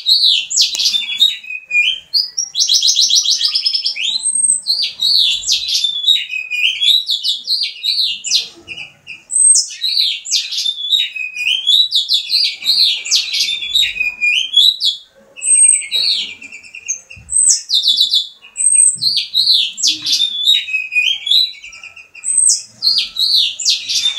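House finch singing long phrases of rapid warbles and chirps, some ending in buzzy trills, with brief pauses between phrases. The owner takes the singing for a sign that the bird is ready to mate.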